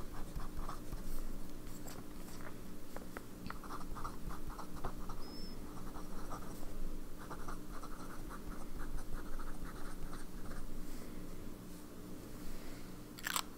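Sailor 1911S fountain pen's zoom nib scratching across thin Tomoe River paper in many short strokes as words are handwritten, over a faint steady hum. A sharper click sounds near the end.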